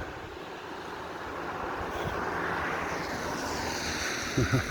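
A vehicle passing by: a broad rushing noise that builds to a peak a couple of seconds in, then eases off a little.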